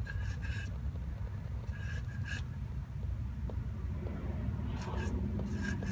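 Gear oil being squeezed through a bottle nozzle into the rear differential's fill hole, in three short bursts, over a steady low rumble.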